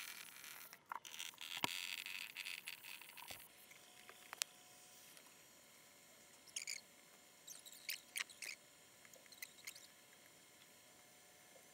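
A foam gun dispensing expanding polyurethane foam into the gap above a door frame: a faint hiss for the first few seconds, a click, then several short, high squeaks and squelches as the foam is pushed out.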